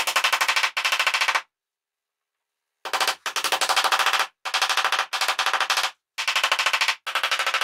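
A mallet rapidly tapping wooden butterfly keys down into their mortises in a hardwood slab, in quick runs of strikes that come in about seven bursts with short silent gaps between them.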